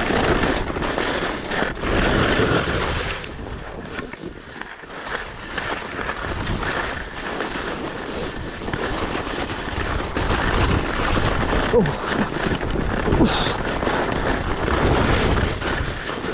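Skis sliding and scraping over snow with wind buffeting the microphone during a downhill run. The rushing noise swells and eases and drops away briefly about four seconds in.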